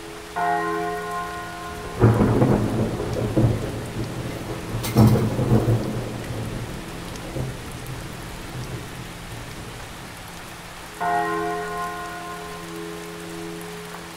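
Rain and thunder sound effect: steady rain, a thunderclap rolling about two seconds in and a sharp crack of thunder about five seconds in. A deep bell tolls near the start and again about eleven seconds in.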